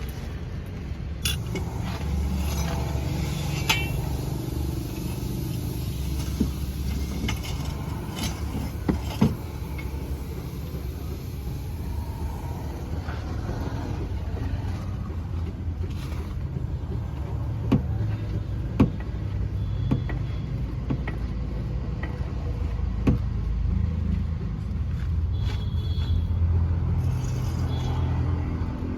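Scattered sharp metallic clicks and knocks of tools and brake parts being handled during a rear brake pad change, over a steady low rumble.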